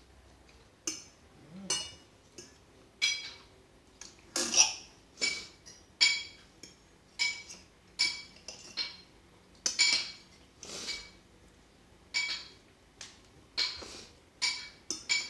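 Metal cutlery clinking and scraping on plates while people eat: a sharp ringing clink every half second to a second.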